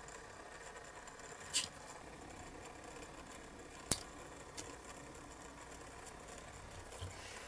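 Hand-handling noises as a two-part silicone mould is worked and pulled apart: a few light clicks and taps, the sharpest about four seconds in, over a steady faint hiss.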